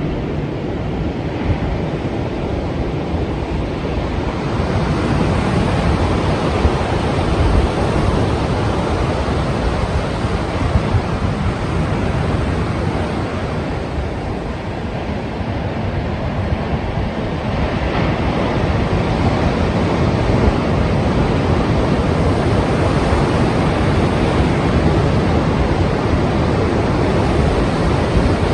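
Strong ocean waves breaking and washing as surf, with wind. The rush swells up about four seconds in, eases a little in the middle, and builds again after about seventeen seconds.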